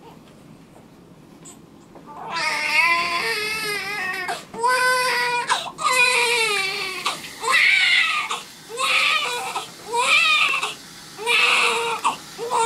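Newborn baby crying during a diaper change. After about two seconds of quiet it starts with a long wavering wail, then breaks into short, rhythmic cries about once a second.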